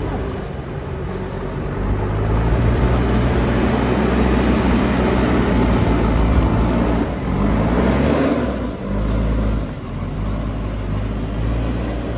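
An engine running steadily, revving up about seven seconds in and dropping back about a second and a half later.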